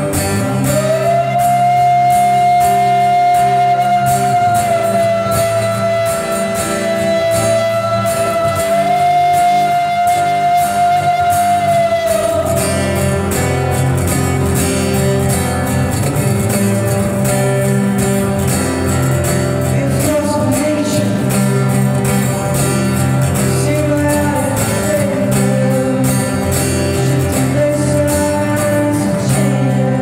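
Live acoustic guitar music: a steady strummed guitar accompaniment under a wordless vocal that holds one long high note for about twelve seconds, then moves into a wandering melody of shorter notes.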